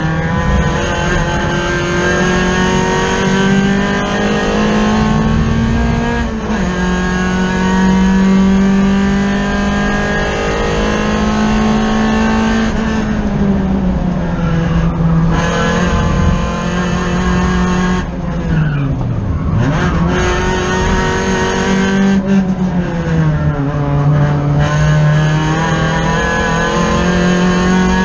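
Race car engine heard from inside the stripped cockpit under hard running. Its note holds high, drops and climbs again several times through the lap, with a deep dip and pull-away about two-thirds of the way through.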